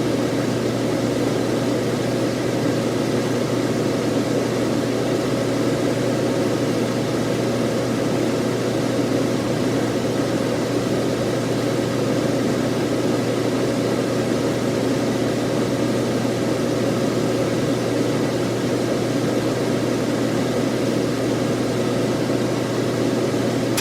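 Electric exhaust fan running steadily: a constant low motor hum under an even rush of air, with no change in speed.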